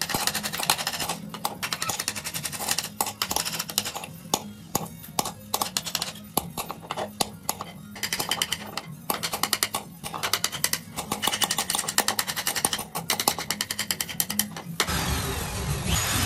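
Rapid, irregular light taps of a hammer on a steel punch, marking dotted lines into a wooden lid, over background music. Near the end an electric drill starts running, boring into the wood.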